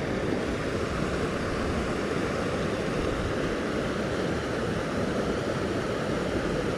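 Steady rush of flowing creek water, an even unbroken noise.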